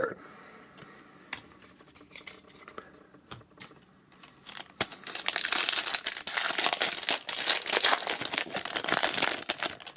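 Foil wrapper of a Topps Gallery trading card pack crinkling loudly as it is pulled open by hand, starting about halfway through and lasting several seconds. Before that, a few faint clicks of the pack being picked up.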